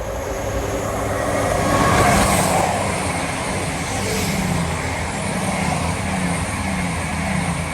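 Diesel passenger train passing close at speed, its engines under power as it accelerates up the gradient. Loudest about two seconds in, then it runs on steadily and starts to fade near the end.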